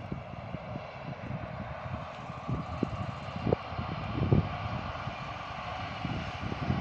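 Distant EU160 electric locomotive and passenger coaches passing: a steady rushing rumble of wheels on rails that slowly grows louder. Irregular low thumps of wind buffeting the microphone run through it, the strongest about halfway through.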